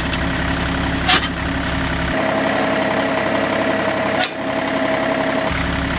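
John Deere 955's three-cylinder diesel engine idling steadily. Sharp metal clicks come about a second in and again past four seconds, as the loader's latch hardware is worked.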